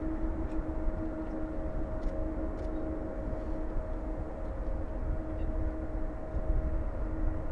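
Distant jet airliner engines running with a steady drone, carrying two steady whining tones over a low rumble.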